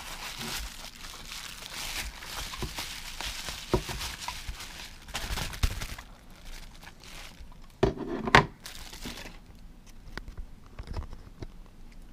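Bubble wrap crinkling and rustling as a small device is unwrapped by hand, with scattered light taps. A sharper knock comes about eight seconds in and is the loudest sound.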